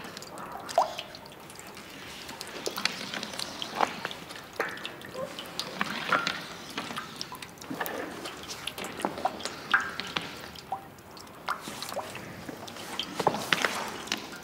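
Water dripping: scattered single drops plinking at irregular intervals, each at a slightly different pitch.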